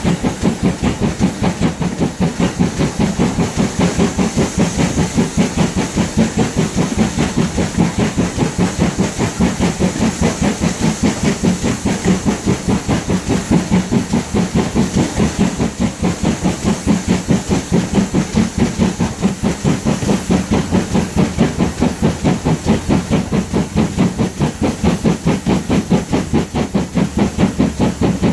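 GWR 56xx class 0-6-2 tank steam locomotive working ahead of the carriage, its exhaust beating steadily at about three beats a second with a hiss of steam.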